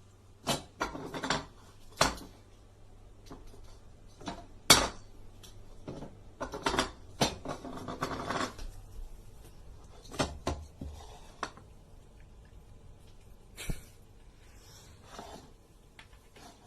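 Irregular clatter of hard objects knocking and rattling together: a run of sharp knocks over the first nine seconds, the loudest nearly five seconds in, then a few scattered knocks.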